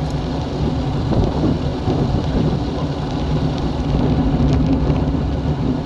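Wind buffeting the microphone of a camera carried on a road bike descending at speed, a loud steady rumble that rises and falls.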